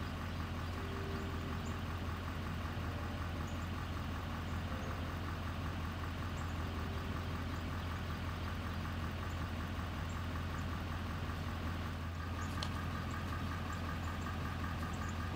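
A vehicle engine idling with a steady, unchanging low hum.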